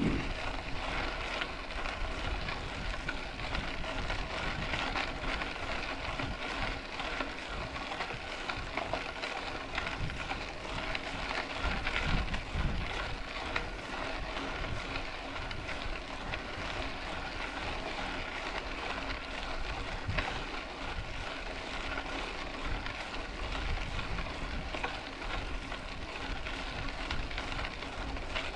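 Mountain bike rolling along a dirt road: a steady crackling rush of tyres on gravel, a little louder about twelve seconds in.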